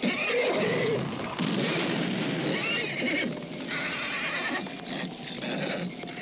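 A horse neighing, several shrill whinnies one after another.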